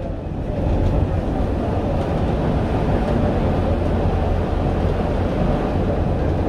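Articulated bus running at speed on a concrete guided busway, heard from inside the cabin at the front: a steady low engine drone with tyre rumble over the track.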